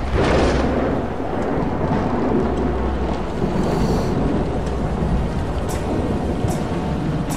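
Thunder: a sudden loud clap right at the start, then a long rolling rumble over falling rain.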